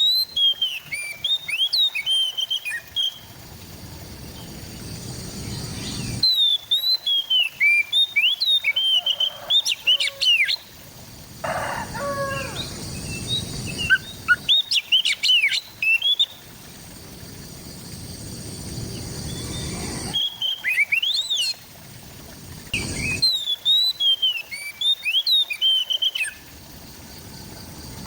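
Oriental magpie-robin (kacer) singing: bursts of quick, varied whistled notes and chirps lasting a few seconds each, separated by short pauses, about six phrases in all. A low background rumble fills the pauses.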